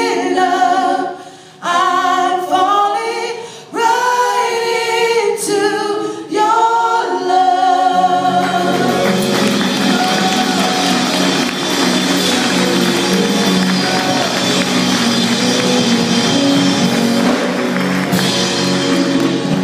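Gospel worship team singing, at first without accompaniment; about eight seconds in, keyboard and bass come in under the voices along with a steady wash of hand clapping.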